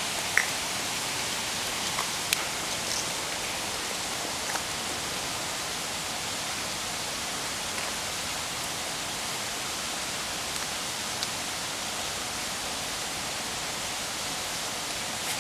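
Steady hiss with a handful of sharp clicks scattered through it: stones knocking together as rocks are set in balance.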